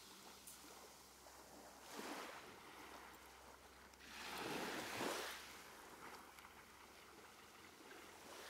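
Faint sea waves washing in. Two slow swells of rushing water, a small one about two seconds in and a larger one around four to five seconds in, over a low steady hiss.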